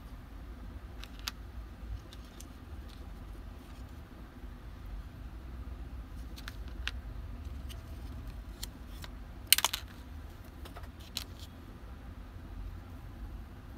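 Scattered light clicks and clinks of tools and small parts being handled, with a quick rattle of clicks about nine and a half seconds in, over a low steady rumble.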